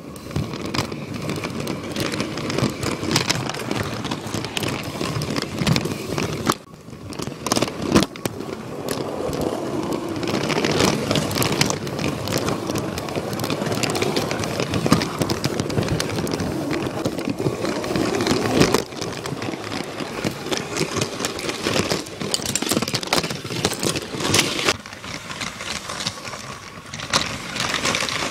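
Lego train running on plastic Lego track close to the microphone: a continuous clattering rattle of many small clicks from the wheels and track. It goes briefly quieter about six and a half seconds in, then picks up again.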